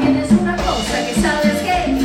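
Live dance orchestra playing a song, heard as a continuous melody.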